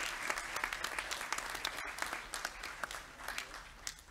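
Audience applauding in a large hall, the clapping thinning out and dying away over the last second or two.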